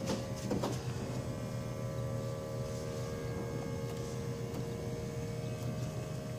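A steady electrical hum, with a few faint ticks in the first second as gloved hands lay fiberglass cloth onto the wet epoxy.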